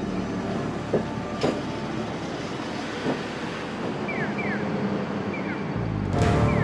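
City street traffic with a tram: a steady rumble with a few sharp clicks, short falling electronic chirps repeating from about four seconds in, and a heavier vehicle rumble swelling near the end.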